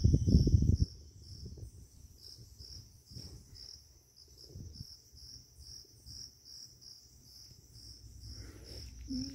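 Insects chirping in a steady high pulse, about two pulses a second, over a faint low rumble. A louder low rumble fills the first second.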